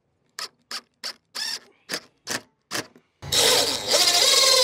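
A run of short, sharp sounds, about three a second. Then, about three seconds in, a cordless drill/driver runs steadily for about two seconds, driving a screw into wooden coop trim, its pitch sagging slightly under load.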